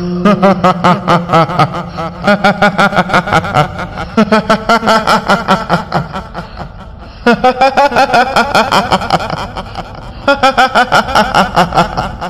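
Kuntilanak ghost laughter: a woman's voice in rapid 'hihihi' giggles, about seven syllables a second, coming in several runs broken by short pauses. There is a longer lull of about a second just past halfway.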